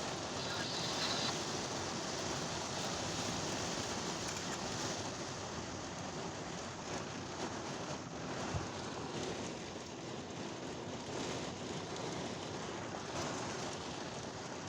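Steady rain falling on a car, heard from inside the cabin.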